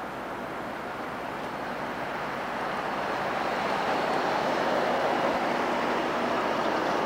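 Road traffic noise, a steady rush that slowly grows louder as a vehicle comes closer, then cuts off suddenly near the end.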